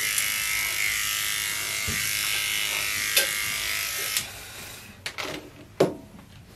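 Cordless dog grooming clipper buzzing steadily as it trims a poodle puppy's coat, switched off about four seconds in, then a couple of knocks as it is handled and set down on the grooming table.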